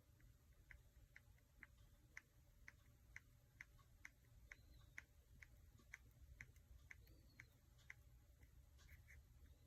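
Near silence: room tone with a low hum and a faint, regular ticking about twice a second.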